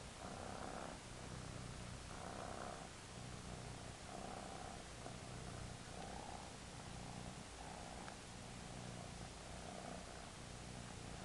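Domestic cat purring steadily while being stroked, the purr swelling and easing about every one and a half to two seconds.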